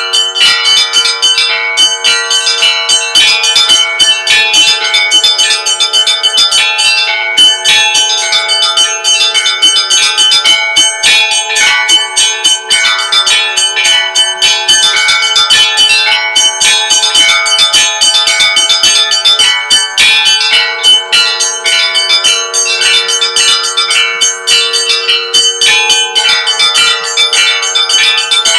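Russian Orthodox church bell ringing (zvon): many bells struck in a rapid, continuous peal. Small bells chime quickly over the steady hum of a larger bell.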